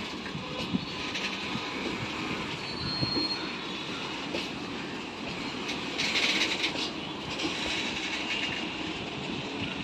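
Suburban EMU train running in on the rails towards the platform, with wheels squealing: a short high squeal about three seconds in and a louder burst of squealing around six seconds.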